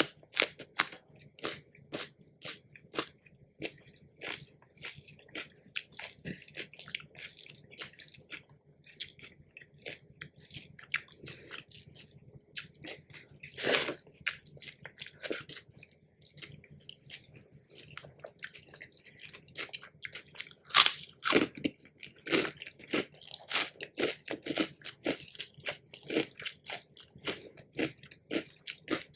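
Close-miked chewing and crunching of crisp food, many small crackling bites, with two louder crunches about halfway and about two-thirds of the way through.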